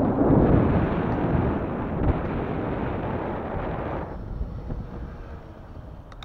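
Wind buffeting the camera's microphone on a moving recumbent bike: a loud rush of noise that starts suddenly and drops away about four seconds in.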